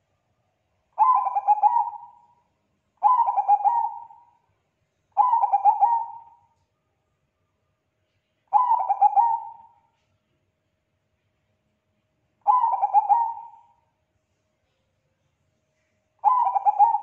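Zebra dove of the Bangkok-bred perkutut strain cooing: six short coo phrases, each a quick run of notes lasting about a second, a few seconds apart.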